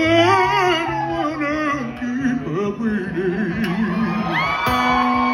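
Live soul music: a male voice sings wordless, wavering vocal runs over acoustic guitar and a stepping bass line, then a long high note is held over a sustained chord from about four seconds in.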